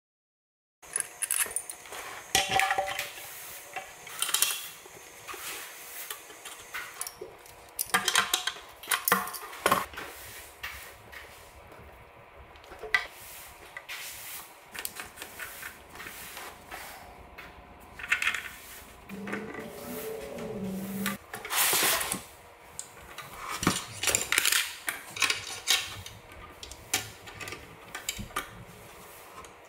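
Irregular clinks, clicks and rattles of metal and plastic faucet and drain parts being handled and fitted to a vanity sink top, with a brief squeaky tone about two-thirds of the way through.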